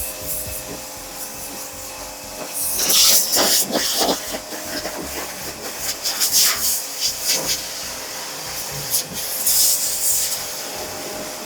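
Portable high-pressure car washer spraying water in short hissing bursts, several times over, over a faint steady hum.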